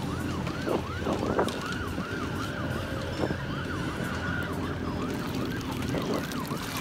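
Spinning reel being cranked fast to bring in a hooked fish, giving a rhythmic rising-and-falling squeaky whir about four times a second, over wind rumble on the microphone.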